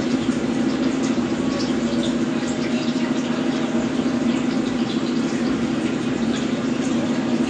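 Beef and potatoes sizzling on a hot grill or griddle, with small scattered crackles, over a steady low machine hum.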